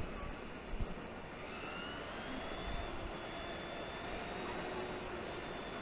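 Electric motor whine of a Traxxas E-Maxx RC truck on the move, its pitch rising and falling slowly with speed over a rumble of wind and tyre noise, with a couple of low knocks about a second in.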